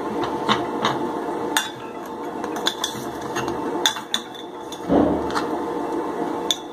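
Steel spoon clinking and scraping against a stainless steel bowl while soft, ghee-soaked dough balls are scooped out, with a scatter of sharp clinks and a louder scrape about five seconds in. A steady low hum runs underneath.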